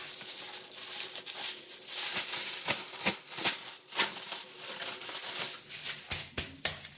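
Aluminium foil crinkling and rustling in quick, irregular crackles as sheets are handled, spread out and pressed flat by hand.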